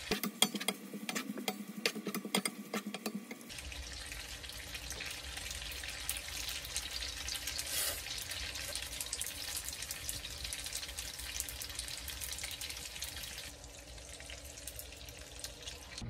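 Spaghetti with shrimp and garlic sizzling in a nonstick frying pan as it is tossed with a wooden spatula: an even hiss starts about three and a half seconds in and drops away shortly before the end. Before it there is a quick run of sharp clicks and taps.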